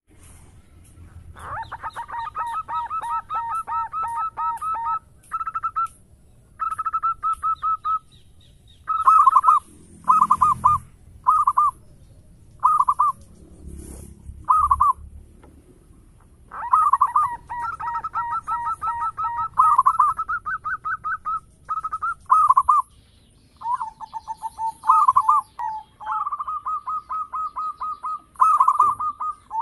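Zebra dove (perkutut) cooing: long phrases of rapid rolling notes, broken in the middle by shorter single coos. A faint high ticking chirp runs underneath.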